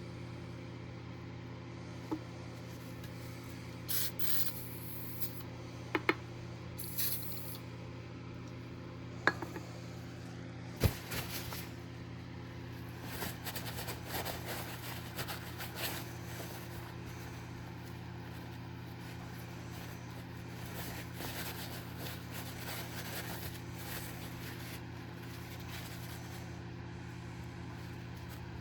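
Hands working on old pocket knives: two short spray hisses, a few sharp metallic clicks, then stretches of rubbing and scraping, over a steady low hum.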